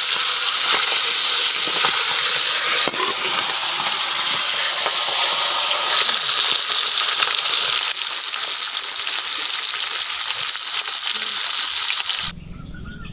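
Food sizzling as it fries in hot oil, a steady loud hiss that cuts off suddenly near the end.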